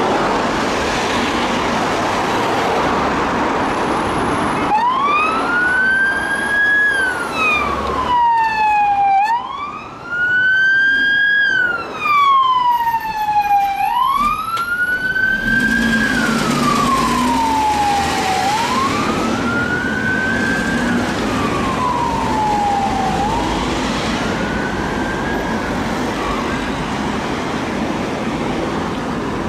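Emergency vehicle's wail siren rising and falling slowly, about every four and a half seconds. It starts about five seconds in and fades over the last few seconds, over steady road-traffic noise. A faster siren tone briefly overlaps it in the middle.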